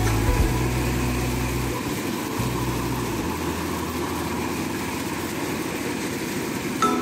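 Engine-driven corn thresher running steadily, a continuous mechanical hum and rattle.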